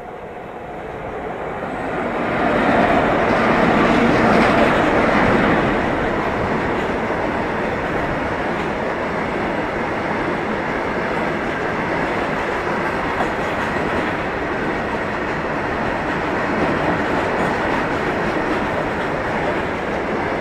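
A freight train passing close by: the locomotive approaches and goes past, growing loud over the first few seconds, then the long line of open-top steel box wagons rolls by with a steady running noise of wheels on rails.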